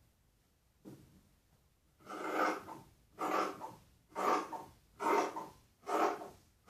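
Scissors cutting through several folded layers of lining fabric, a crisp snip about once a second starting about two seconds in, with a fainter snip near the one-second mark.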